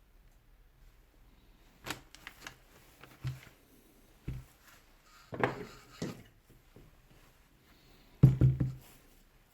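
Irregular knocks and clatters of tools and metal parts being handled while a Hilti TE 40 AVR rotary hammer is taken apart, about six separate bursts with the loudest cluster of knocks about eight seconds in.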